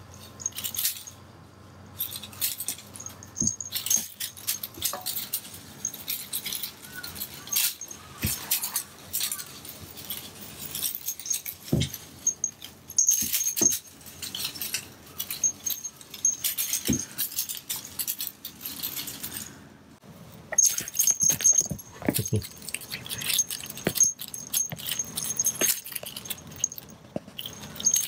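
A kitten playing with a feather wand toy on a wooden floor: a small bell jingling in bouts, the toy's crinkly streamers rustling, and paws scrabbling, with a few soft thumps as it pounces.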